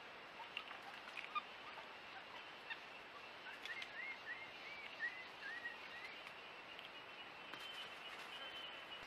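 Faint forest sounds: a steady high insect drone, scattered clicks, and in the middle a quick run of about seven short, arching chirping calls from an animal.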